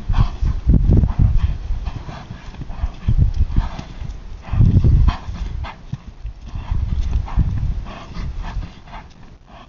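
Hoofbeats of a grey Quarter Horse stallion loping and turning back on loose arena dirt: an uneven run of soft strikes with heavier low thuds, loudest near the start and about five seconds in.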